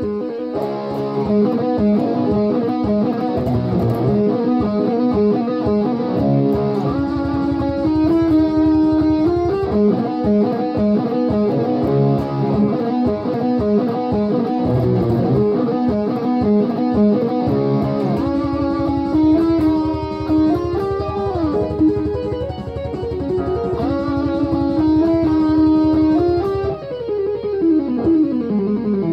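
Steinberger GR4R headless electric guitar played with a pick: a continuous melodic line of single notes and short phrases. Near the end a few notes glide downward in pitch.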